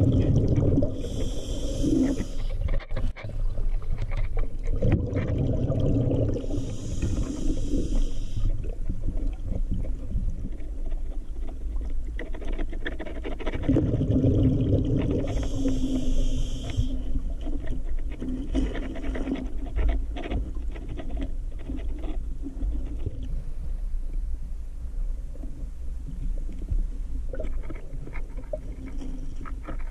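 Scuba diver breathing through a regulator, heard underwater: a hiss on each inhale and a low bubbling rumble on each exhale, three breaths in the first half, over a steady low river rumble with small scrapes and clicks.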